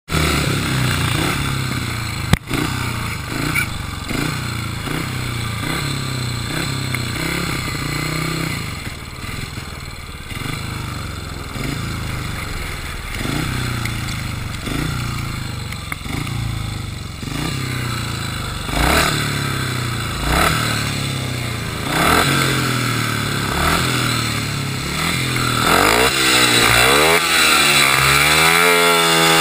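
Speedway motorcycle's single-cylinder engine running with repeated short throttle blips, about one a second, and a sharp knock about two seconds in. Near the end the revs climb higher in rising sweeps.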